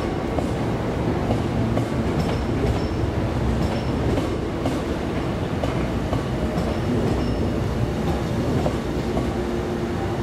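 Hankyu 8300-series electric commuter train running on the rails, a steady rumble with faint clicks of wheels over the track.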